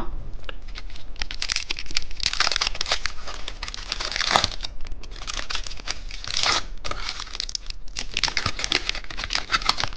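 Candy packaging being unwrapped by hand: plastic wrapper crinkling and tearing with dense, irregular crackles.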